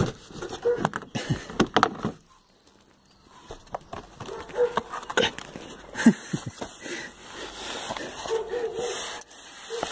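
Irregular knocks, scrapes and rustling of gloved hands working at a car's plastic engine undertray, with a quiet pause of about a second just after two seconds in.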